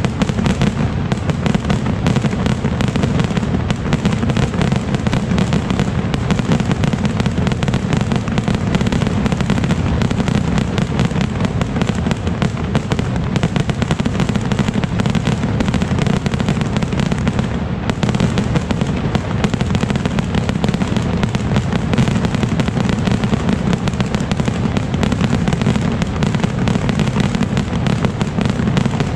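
A dense, unbroken barrage of skyrocket fireworks (voladores) launching and bursting: rapid overlapping bangs and crackle that never let up.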